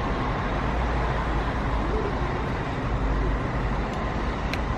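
Steady outdoor ambience: a low rumble under an even hiss, with no single event standing out.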